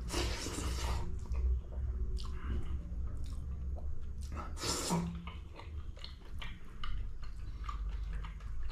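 Close-miked chewing of pork fry with rice and dal: irregular wet mouth smacks and small clicks, with a louder smack at the start and another about five seconds in.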